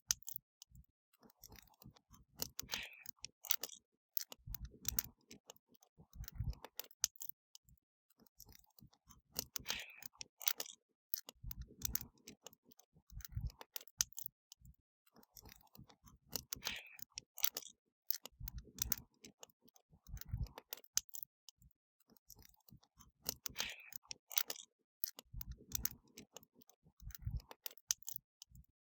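Wood fire burning, crackling and popping with frequent sharp snaps, and a low rumble of flame swelling every few seconds.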